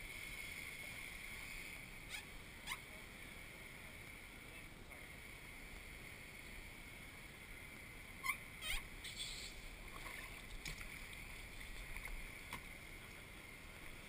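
Kayak paddling on calm water: faint drips and small splashes from the paddle, a couple about two seconds in and a cluster around eight to nine seconds, over a steady low hiss.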